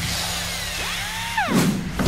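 Intro music with a whooshing sound effect: a gliding tone rises, then dives sharply near the end.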